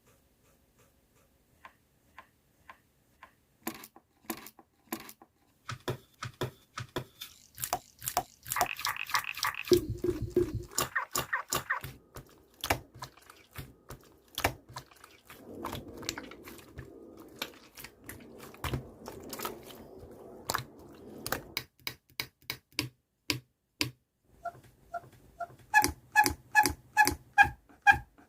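Slime being squeezed and pressed by hand: a long run of sharp pops, clicks and crackles from trapped air, with softer squishing in the middle. Near the end a light, bouncy music tune comes in.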